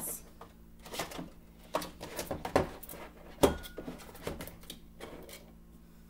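Plastic bowls clattering and knocking against each other and the cupboard shelf as they are pushed in and stacked: a run of irregular light knocks, the loudest about three and a half seconds in with a brief ring after it.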